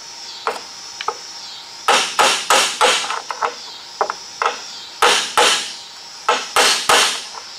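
Light hammer taps on a classic Pontiac GTO's metal drip rail molding, coming in quick runs of three or four with short pauses between, each tap sharp with a brief ringing tail. The taps work the molding's lip off the roof's drip rail so it rolls free.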